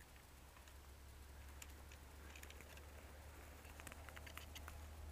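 Near silence: a steady low hum with a few faint, scattered clicks and rustles of dry brush and gear as the player shifts in the undergrowth.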